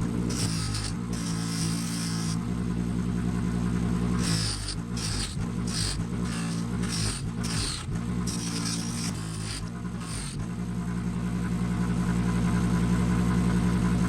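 Electric power tool motor running with a steady hum, while a scissor part is repeatedly pressed against its abrasive in short passes that each add a high hiss; the passes stop about ten seconds in and the motor runs on alone.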